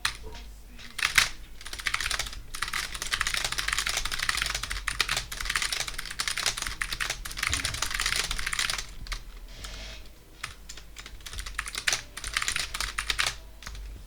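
A creaking chair: dense, rapid crackling creaks in a long run, a pause about nine seconds in, then a shorter second run that stops near the end.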